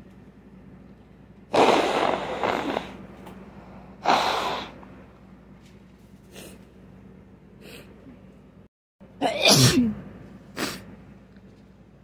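A person sneezing three times in a bout, each sneeze loud and sudden, about a second and a half, four seconds and nine seconds in; the voice drops in pitch on the third. Softer short breathy sounds come between the sneezes.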